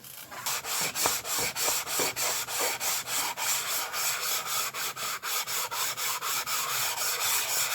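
A flat stone rubbed quickly back and forth over the gasket mating surface of a Honda BF25/30 outboard's powerhead block, a steady rasping scrape at about three strokes a second, lapping the face flat for a new gasket.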